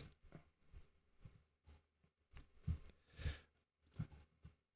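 Faint, irregular clicks and taps of a computer mouse and keyboard being worked, about a dozen in all, with a sharper click at the very start.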